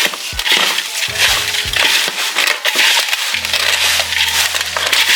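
Coarse ground grain feed mash being stirred and worked by hand, a dense crunching and rustling with a few small knocks. Background music, with low held notes coming in a little over three seconds in.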